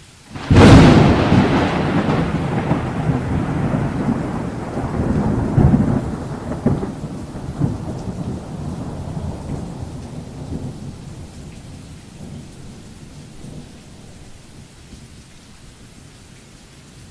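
A sudden loud thunderclap about half a second in, followed by rolling rumbles that swell a few more times and fade slowly over about ten seconds. Rain hisses steadily underneath.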